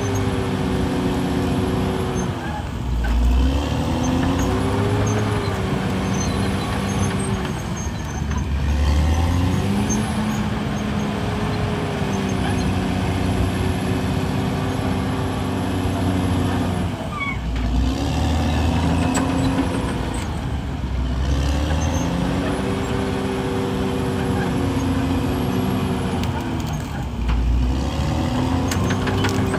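CAT D6R crawler bulldozer's diesel engine working under load while pushing dirt. Its pitch sags and climbs back again every few seconds as the load changes.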